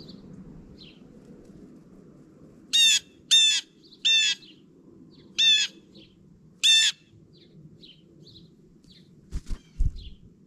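Blue jay giving five loud, harsh calls in irregular succession, with faint short chirps of small birds between them. Near the end come a few low thumps and flutters as the jay lands right by the camera.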